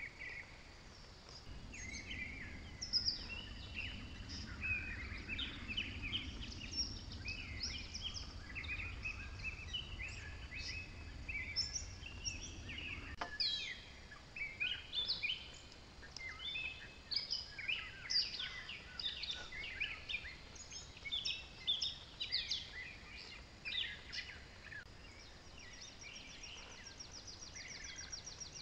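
Wild birds calling and singing, many short chirps and whistled notes overlapping, with a low rumble in the first half that stops suddenly. A fast, high trill comes in near the end.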